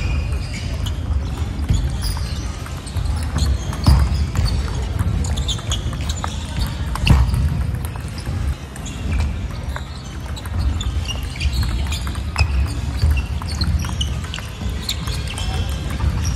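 Table tennis rally: the ball clicking off the rackets and the table in a sports hall, over background music.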